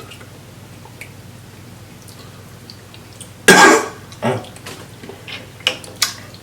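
A person coughs once, loudly, about halfway through, with a smaller follow-up sound just after and a few light clicks near the end.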